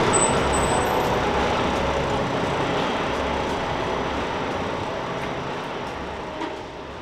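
A Bombardier Flexity Outlook low-floor streetcar rolling slowly up to a platform: a steady rumble of wheels and running gear with no distinct events, fading out gradually.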